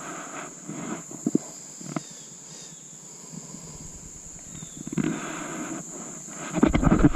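A steady high insect drone, with scattered knocks and rustling and a loud low rumble near the end.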